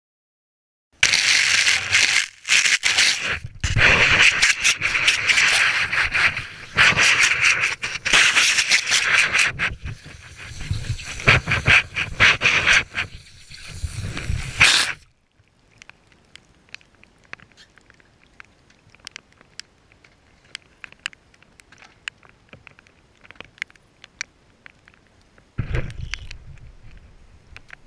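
Handling noise from a GoPro in its housing being picked up and moved: loud rubbing, scraping and rattling in bursts for about fourteen seconds. After that it drops to faint scattered ticks, with one more short burst of handling near the end.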